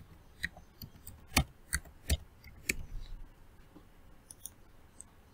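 Typing on a computer keyboard: light, irregular key clicks, thinning out after about three seconds.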